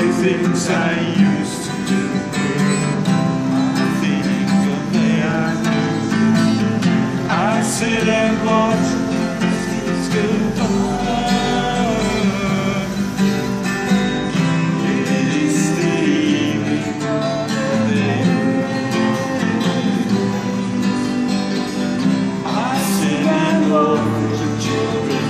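Two acoustic guitars strummed together, with a man singing over them at intervals.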